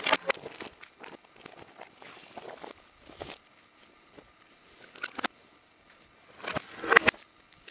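Footsteps crunching through dry brush and twigs, uneven and irregular, with a louder cluster of snaps about seven seconds in.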